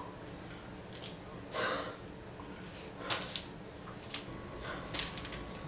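A person's breath, one audible exhale like a sigh about one and a half seconds in, followed by a few small sharp clicks or crackles from handling something in the hands, over faint room hiss.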